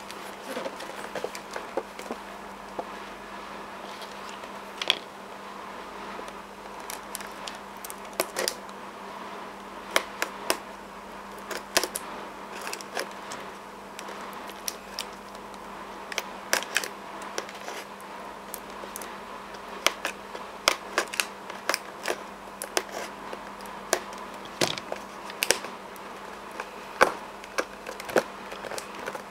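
Hands turning and handling a cardboard product box: irregular taps, clicks and scrapes of fingers and cardboard, dozens of them at uneven intervals, over a steady low background hum.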